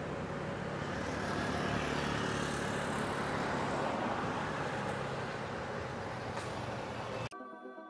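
Tour coach engine running and tyres rolling on the road as the coach approaches, a little louder around two seconds in. About seven seconds in the sound cuts off suddenly into soft electronic music.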